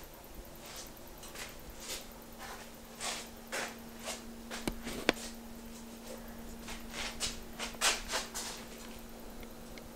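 Quiet room sound with a faint steady hum, broken by scattered soft rustling and handling noises and two sharp clicks about halfway through.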